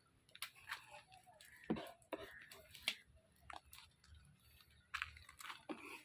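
Faint, distant voices with scattered sharp clicks and knocks, the loudest about two and three seconds in.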